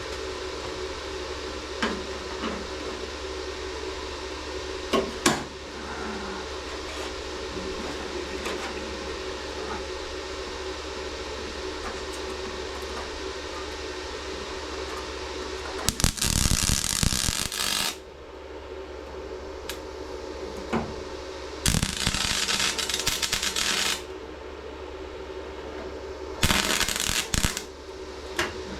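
MIG welder laying short welds on a steel car body panel: three bursts of about two seconds each, starting some sixteen seconds in. Before them there is a steady hum with a few sharp clicks.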